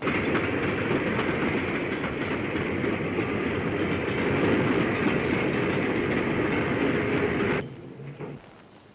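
Steam train running, a dense steady rail noise that cuts in suddenly and cuts off about seven and a half seconds in.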